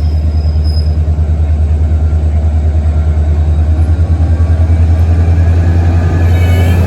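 Steady low rumble of a MARC commuter train running along the track, with a fast pulsing flutter. A faint high squeal comes in near the end.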